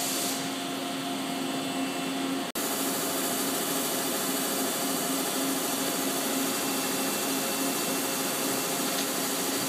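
Large boring mill cutting a bore with a Sandvik damped boring bar and finishing head: a steady machine hum with a held tone. The sound cuts out briefly about two and a half seconds in, then carries on the same.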